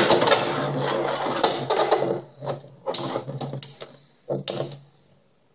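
Two metal-wheeled Beyblade spinning tops whirring across a plastic stadium floor, with several sharp clacks as they collide. The whir fades away near the end.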